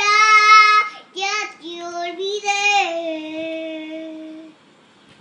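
A toddler girl singing loudly, a few short phrases and then one long held note that stops about four and a half seconds in.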